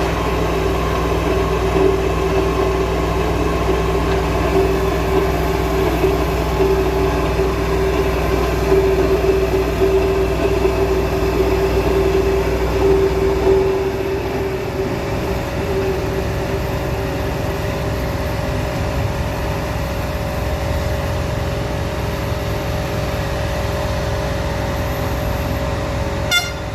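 Pile-driving rig's heavy machinery running with a steady loud drone. About halfway through, its deep low hum drops away and a higher steady tone takes over, a change in how the machine is running. There is a short sharp sound near the end.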